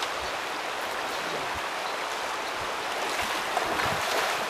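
Shallow river rushing steadily over a rocky riffle, a little louder in the last second or so.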